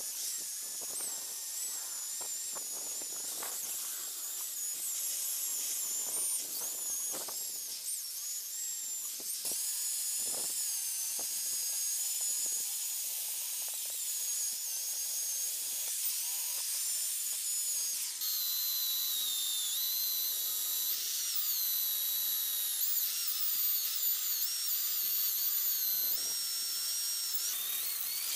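Electric drill spinning a wire brush attachment against a rusty G-clamp to strip the rust: a steady scratching hiss with a high whine that wavers in pitch, changing character about two-thirds of the way through.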